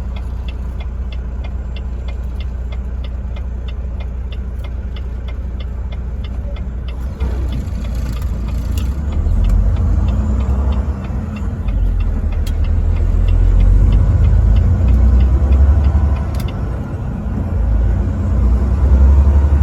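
Truck driving on the highway, heard from the cab: a steady low engine and road rumble that grows louder and swells from about seven seconds in. A fast, even ticking, about four a second, runs over the first seven seconds.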